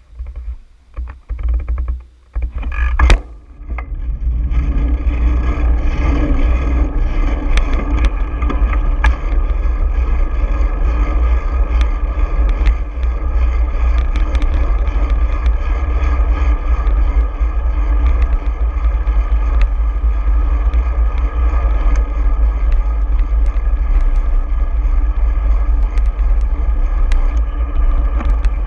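Wind buffeting the camera microphone while riding along a city street, with road and traffic noise. It comes in uneven gusts with a sharp knock about three seconds in, then settles into a steady, loud low rumble from about four seconds on, as the rider gets under way.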